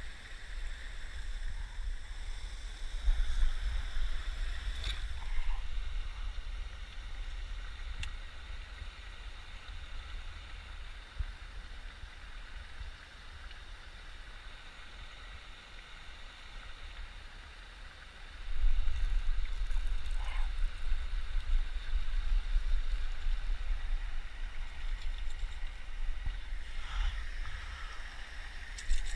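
Outdoor wind buffeting the microphone in low rumbling gusts, a short one a few seconds in and a longer spell from a little past the middle, over a steady wash of running water from a spillway.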